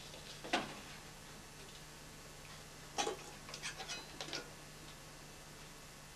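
Clinks and knocks of dishes and a metal spoon being picked up on a cluttered stovetop: one soft knock about half a second in, then a quick run of sharp clinks about three to four and a half seconds in.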